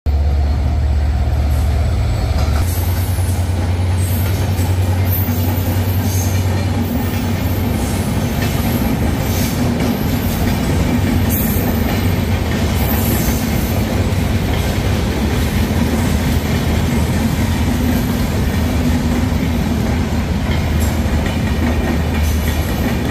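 Diesel-electric locomotive passing close by, its engine droning deep in the first couple of seconds. A long string of passenger coaches then rolls steadily past, wheels clacking over the rail joints with occasional high squeals.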